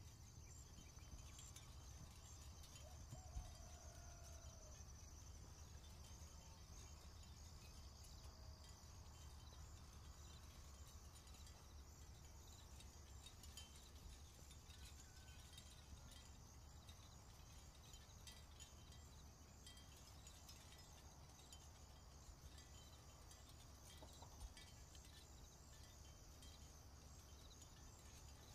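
Near silence: faint room tone with a steady high-pitched hiss and a low hum, broken by two small clicks.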